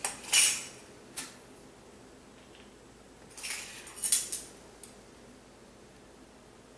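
Metal measuring spoons on a ring clinking together as they are handled: a few short clinks near the start and another cluster about three and a half to five seconds in.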